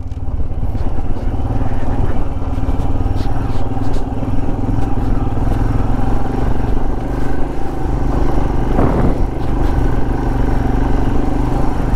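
Motorcycle engine running steadily at low speed while riding a rough dirt track, with wind noise on the microphone and a few light knocks.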